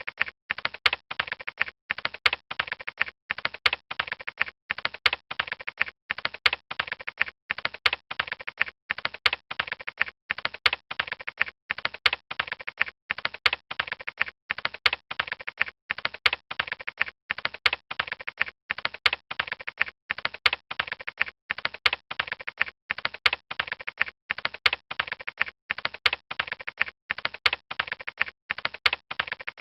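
Fast typing on a computer keyboard: short runs of rapid key clicks, each broken by a brief pause.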